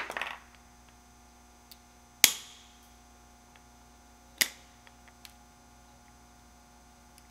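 Hand snips cutting through the plastic ear tab of a MAP sensor housing: sharp snaps as the blades bite through, the loudest a little over two seconds in and another about two seconds later, with a few lighter clicks between them.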